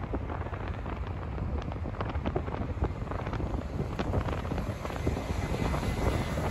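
Low rumble of a jetBlue Airbus A320's engines as it approaches low on final to land, with wind buffeting and crackling on the microphone. A thin engine whine comes in near the end.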